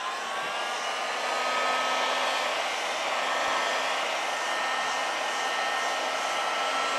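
Heat gun blowing air, its motor whine rising as it spins up and settling to a steady pitch about a second and a half in, then running steadily.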